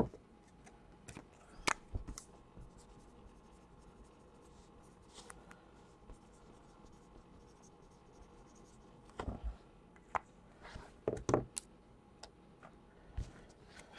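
Trading cards being handled on a stack: faint, scattered slides and taps of card on card, with a cluster of louder taps and rubs in the second half.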